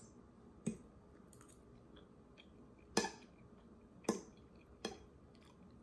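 Quiet eating sounds from taking a forkful of food and chewing: about four short, sharp clicks and smacks, spaced a second or more apart.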